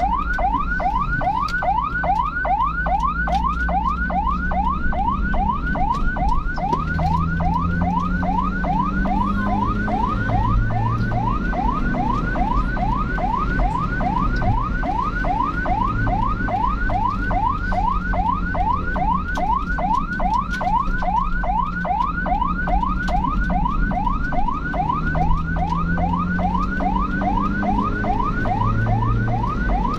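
Emergency vehicle siren in fast yelp mode, short rising sweeps repeating about three times a second without a break. Underneath, engine and road noise, with the engine pitch rising and falling a few times.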